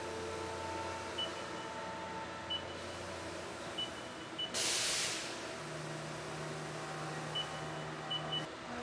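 Haas CNC mill cutting grade 5 titanium under heavy coolant: a steady hiss of coolant spray with steady tones underneath and a few short high chirps. A louder burst of spray hiss comes about halfway through.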